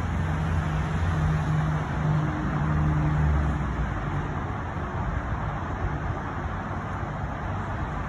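Road traffic: steady motor-vehicle noise with a low engine hum that swells a couple of seconds in, then eases off.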